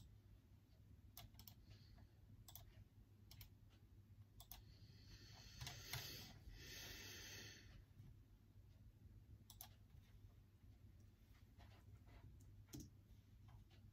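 Faint, sparse, irregular clicks of computer keys being pressed now and then. A soft rustle runs from about five to almost eight seconds in.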